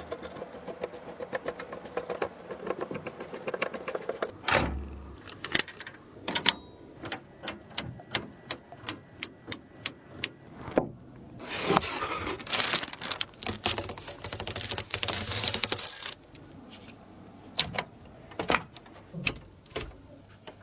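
Sharp plastic and metal clicks, taps and rattles of computer parts being handled and snapped into place during a PC build, with a few seconds of denser rustling noise in the middle.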